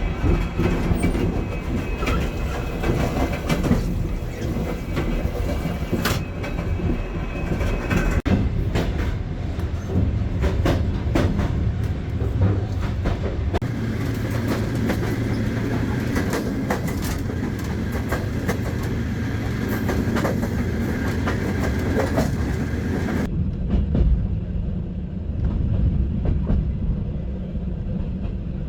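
Soviet-era passenger train carriages rolling on the rails: a steady low rumble with the clickety-clack of wheels over rail joints and scattered sharp knocks. About 23 seconds in, the sound turns more muffled.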